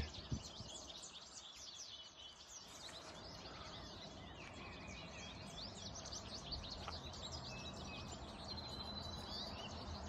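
A flock of small finches, which the speaker takes for yellow finches, chattering: many faint, high, quick chirps overlapping without a break, with a few longer thin whistles mixed in.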